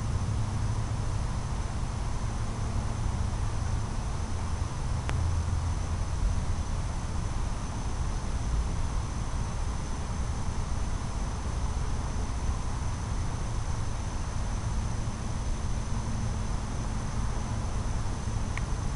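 Steady outdoor background: a low rumble with hiss, and a steady high-pitched trill of insects. A single faint click about five seconds in.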